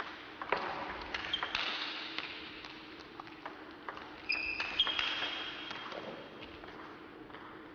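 Table tennis rally of forehand drives: the ball clicking off the paddles and bouncing on the table in quick succession, echoing in a large hall. A few short high squeaks come about halfway through.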